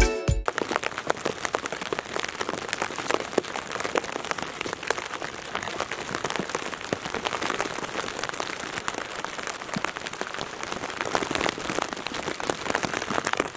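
Steady rain falling, a dense patter of drops on the cabin's tarp sheeting.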